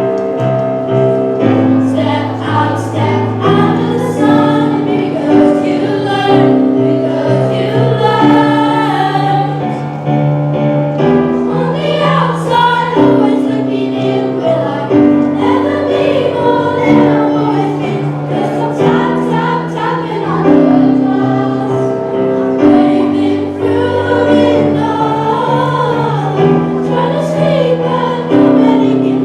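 A children's choir sings a pop ballad in unison over an accompaniment of held chords that change every second or two.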